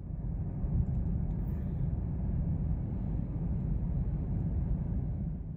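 Steady low rumble of a car driving at highway speed, heard from inside the cabin: tyre and road noise with engine hum.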